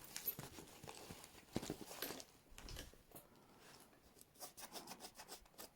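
Faint handling noise: scattered light clicks, taps and scrapes as a bag and its contents are moved about, with a quick run of ticks near the end.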